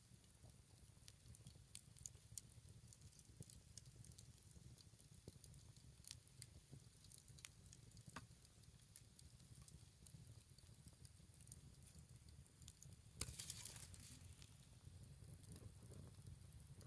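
Wood bonfire of scrap lumber offcuts burning with faint, scattered crackles and small pops, and a brief louder burst of crackling about thirteen seconds in.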